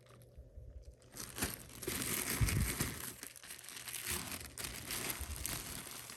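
Plastic bag of potting soil crinkling and rustling as it is handled, with a dull thump about two and a half seconds in.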